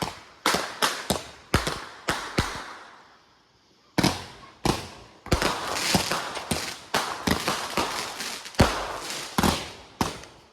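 Consumer fireworks going off: a rapid, irregular series of sharp bangs, several a second, with a short pause about three seconds in before a denser run of bangs.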